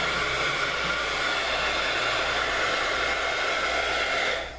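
Handheld craft heat gun blowing steadily, a hiss with a whine of fan tones, drying freshly sponged acrylic paint. It switches off near the end.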